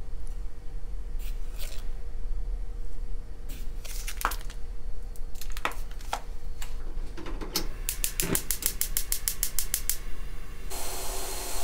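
A few light taps and clicks, then a gas hob's igniter clicking rapidly, about ten clicks a second for some two seconds. The burner then catches, and a steady hiss of gas flame follows near the end.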